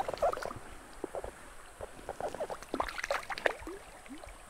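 Shallow stream water splashing and gurgling in a rapid scatter of small plops, stirred by wading legs and a hooked fish at the surface close by.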